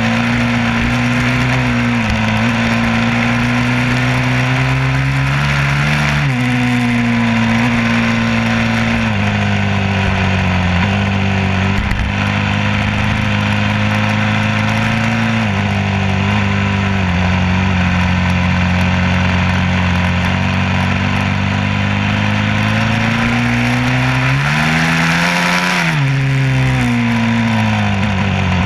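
A vehicle engine running steadily, its pitch shifting in small steps, then rising and falling once near the end.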